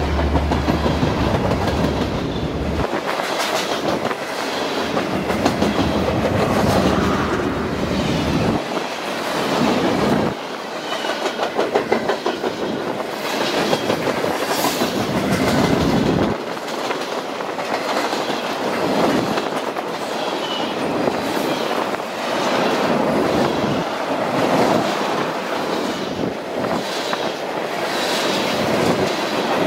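Train rolling past close by, its wheels clacking over the rail joints in a constant rattle. A low engine drone in the first few seconds drops away as the cars go by.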